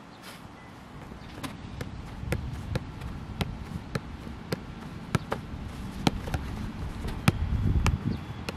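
Football being juggled: a run of sharp, irregular taps of foot and thigh on the ball, roughly two a second. A low rumble swells under them near the end.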